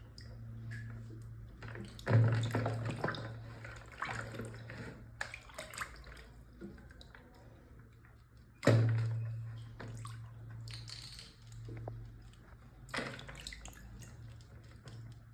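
Water sloshing and splashing in a small basin as a toy is washed by hand, with a louder splash about two seconds in and another past the middle.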